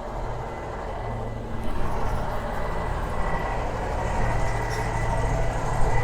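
A train engine running: a steady low rumble that grows gradually louder, with a thin, steady high whine throughout.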